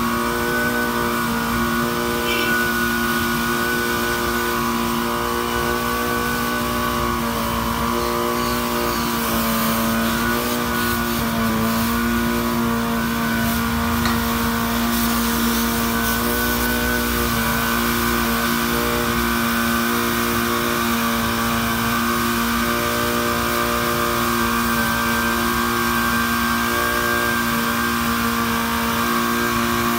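Engine of a mini fire truck's rear-mounted fire pump running steadily under load, pumping water through a charged hose line, holding an even pitch throughout.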